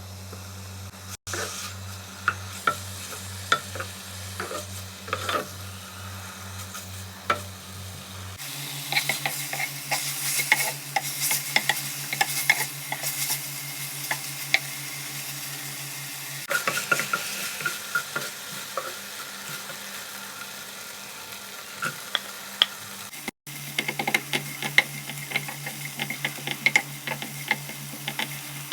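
Food sizzling in a hot frying pan while a utensil stirs and scrapes it, with many sharp scraping clicks, over a steady low hum that shifts in pitch at each cut.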